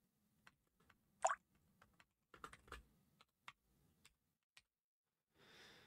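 Sparse typing on a computer keyboard: scattered single key clicks, with a louder double clack about a second in and a quick run of keys a little later. A faint hiss comes near the end.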